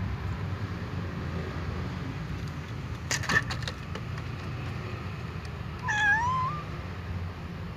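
A cat meows once about six seconds in, a short call that dips in pitch and then rises. A few sharp clicks come about three seconds in, over a steady low rumble.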